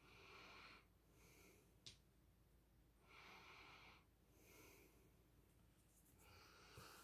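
Near silence with faint breathing close to the microphone: a few soft breaths in and out, and a small click about two seconds in.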